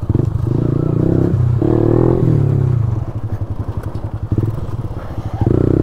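Motorcycle engine heard from the rider's own bike on a rough dirt track, running hard under throttle. About three seconds in it drops to a quieter, uneven putter as the throttle eases off, then picks up strongly again near the end.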